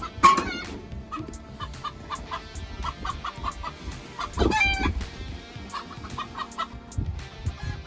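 Background music with a steady beat of short plucked notes and ticks. Over it a bird calls loudly twice, once just after the start and once about halfway through.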